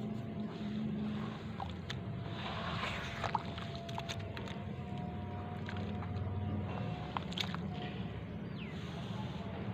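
Hands squeezing and kneading wet sand-cement mud under water in a plastic basin, with squelching, sloshing and a few small sharp clicks, busiest a few seconds in. A steady low rumble runs underneath.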